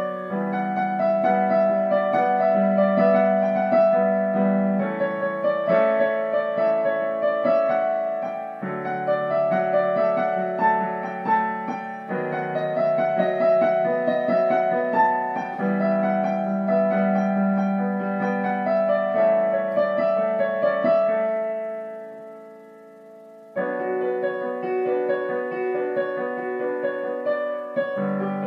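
Background piano music, a slow melody over held chords. It fades down about 21 seconds in and starts again abruptly a couple of seconds later.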